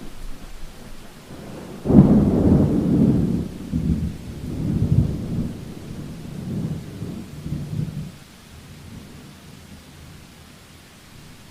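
Thunder in a rainstorm: a sudden low crack about two seconds in, then rumbling in rolling surges for about six seconds before it dies away. Steady rain hiss runs underneath.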